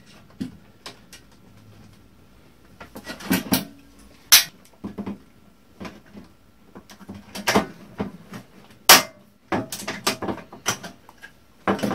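Aluminum radiator fan shroud and rivet hardware handled on a wooden workbench: irregular clanks, rattles and clicks, with two sharper, louder clicks a few seconds apart.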